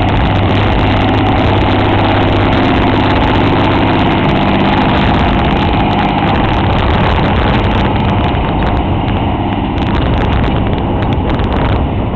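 John Deere 8220 tractor's six-cylinder diesel running steadily under load as it pulls a subsoiler past close by, the sound easing off a little in the last few seconds as it moves away.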